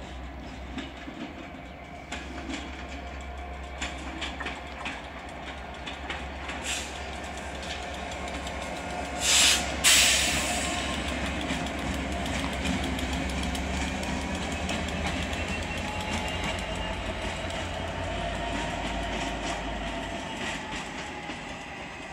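A train moving through a station, its wheels clicking over the rail joints over a steady rumble, with two short loud bursts of noise about nine and ten seconds in and a faint whine slowly rising in pitch in the second half.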